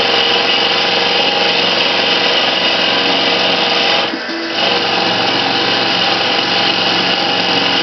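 Mini metal lathe running, its tool cutting a metal bar with a steady, bright hiss as the homemade CNC drive feeds it. The cutting sound drops away for about half a second a little past the middle, then resumes.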